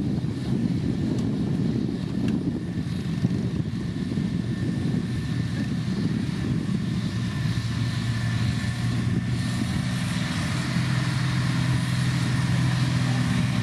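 Diesel engine of heavy road-building machinery running steadily under load, with a low droning note that becomes steadier and more distinct in the second half.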